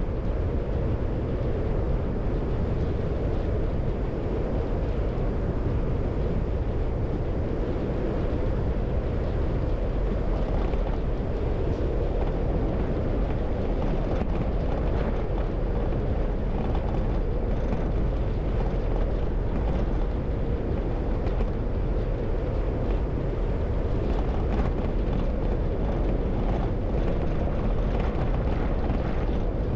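Car driving at a steady speed: continuous road and engine noise with a deep low rumble, and faint light ticks in the second half.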